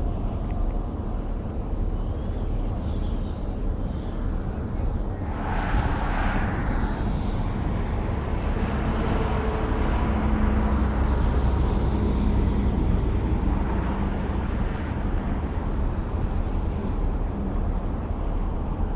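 Steady low outdoor rumble of road traffic, with one vehicle passing close by about six seconds in, swelling and fading.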